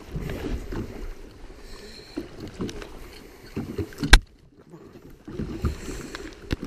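Knocks, rustles and clatter of a caught fish being lifted aboard a small open fishing boat by hand, with one sharp, loud knock about four seconds in and a brief hush right after it.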